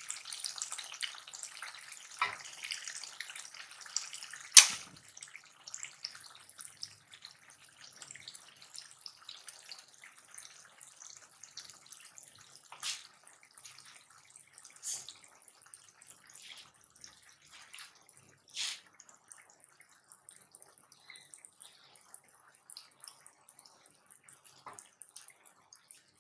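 Beef karahi sizzling softly in its separated ghee in a metal karahi: a faint, steady crackle with scattered pops, busier in the first few seconds while a wooden spoon stirs it. A sharp knock about four and a half seconds in is the loudest sound.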